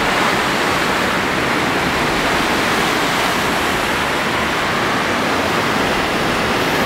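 Fast mountain river rushing over whitewater rapids: a steady, loud wash of running water.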